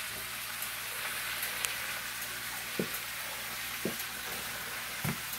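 Cabbage frying in oil and grease in a large skillet, a steady sizzle. A few light knocks sound through it.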